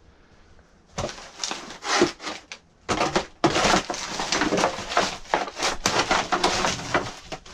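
Wood and debris crunching and clattering as they are shifted and broken up, in a rapid, close string of cracks and scrapes. It starts about a second in and runs almost without a break from about three and a half seconds.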